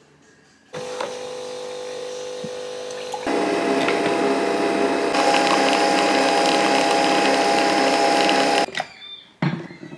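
Nespresso Vertuo capsule coffee machine brewing: a steady mechanical hum starts about a second in, grows louder with a higher tone added about three seconds in, and cuts off sharply near the end. A few light clatters follow.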